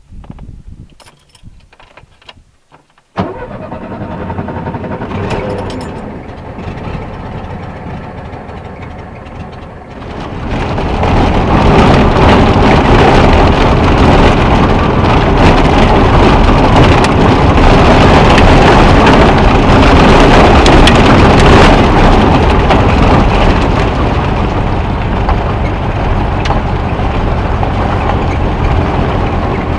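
Volkswagen Beetle's air-cooled flat-four engine, heard from inside the cabin. A few faint clicks come first. The engine sound begins suddenly about three seconds in with a steady note, then gets much louder from about ten seconds in, with road and wind noise, as the car drives at speed.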